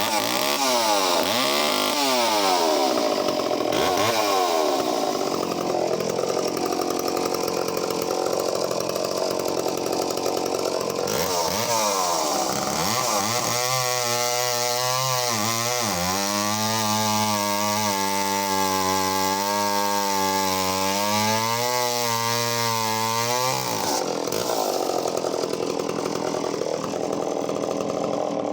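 Echo CS-451VL two-stroke chainsaw running at high revs, cutting through a log of about ten inches. The engine pitch wavers and sags as the chain bites, then holds steadier through the middle of the cut.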